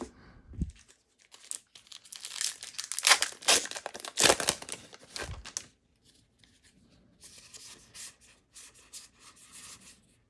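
A Magic: The Gathering booster pack's plastic foil wrapper being torn open and crinkled for several seconds, followed by softer rustling as the cards inside are handled.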